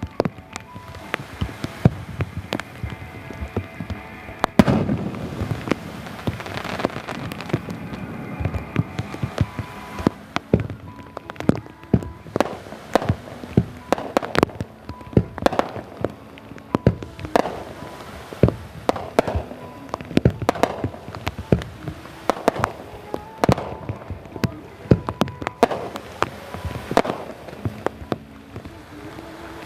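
Fireworks display: aerial shells bursting one after another, many sharp bangs throughout, with music playing underneath.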